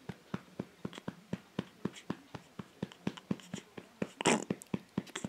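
A short burp about four seconds in, over a run of light, regular taps about four a second.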